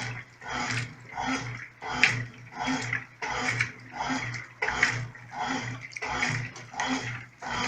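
Brastemp Clean 5 kg top-loading washing machine agitating on its delicate setting, in the initial agitation stage of the soak program. Water sloshes around the agitator in a steady back-and-forth rhythm, about three strokes every two seconds, each stroke with a low motor hum.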